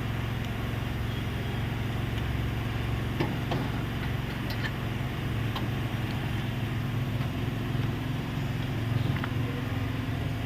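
A steady low engine hum, with a few light clicks and taps over it.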